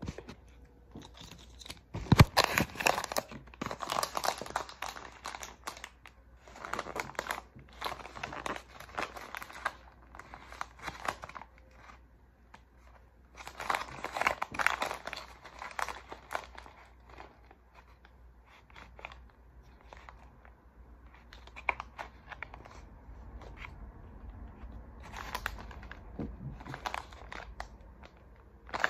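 Crinkling and rustling of a packaging pouch from an MRE meal in several bursts as it is handled and squeezed in the hands, with a sharp crackle about two seconds in.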